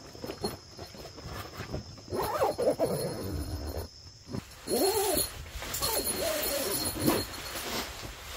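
An animal calling several times, each call rising and then falling in pitch, with rustling in between.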